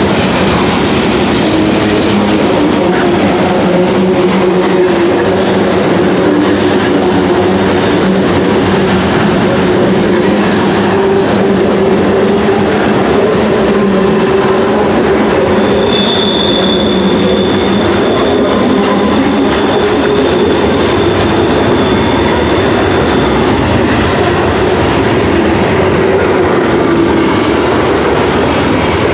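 Loaded open hopper cars of a CSX rock train rolling past: a steady loud rumble and clatter of steel wheels on rail. About halfway through, a thin high wheel squeal joins in and lasts several seconds.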